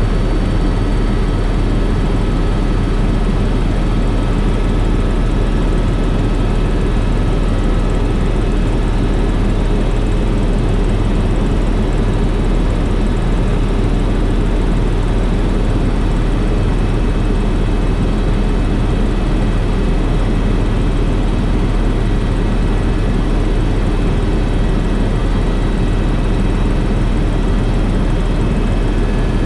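Helicopter running steadily: a loud, unchanging drone with a few faint, thin high whines over it.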